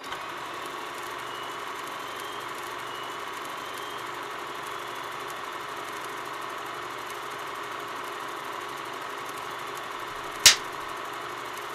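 Film projector running, a steady mechanical whir. Near the end, a single sharp clapperboard snap.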